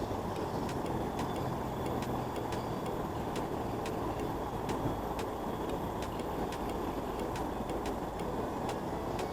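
Steady rushing of a flowing river, with scattered light ticks throughout.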